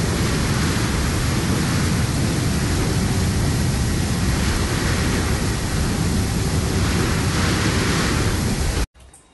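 Steady, loud storm noise of wind and rain with a deep rumble, cutting off abruptly near the end.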